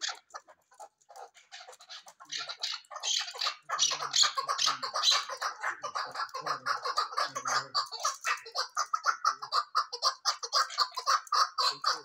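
Caged chukar partridge calling: a few scattered chuck notes at first, then about three and a half seconds in a fast, even run of repeated chuck notes that keeps going.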